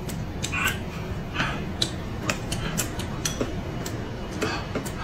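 Close-miked hot pot eating: chewing and slurping, with frequent sharp clicks of chopsticks against bowls, over a steady low hum.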